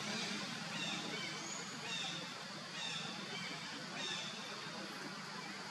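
Forest ambience: a steady hiss with short, high bird calls repeating about once a second.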